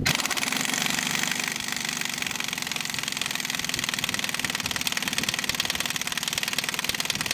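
M7 half-inch pneumatic impact wrench hammering continuously, a rapid, dense rattle of hammer blows that starts abruptly and holds steady.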